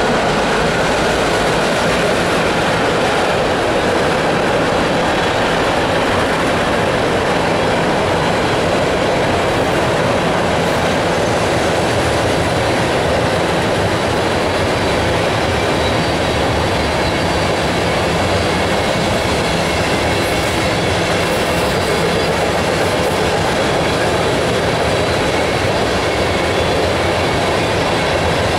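Freight cars of a long freight train, tank cars and covered hoppers, rolling past, their steel wheels running steadily on the rails.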